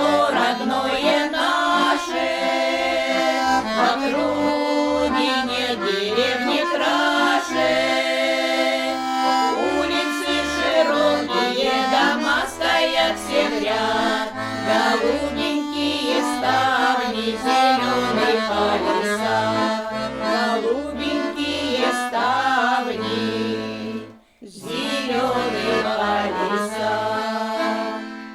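Accordion music: a melody over a regular bass beat. It drops out for a moment about three-quarters of the way through, then resumes.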